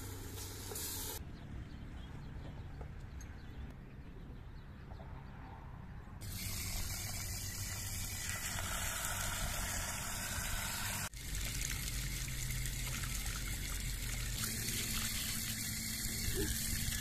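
Water running from a tap into a bowl of grain, with hands swishing and rubbing the grain as it is rinsed in the water.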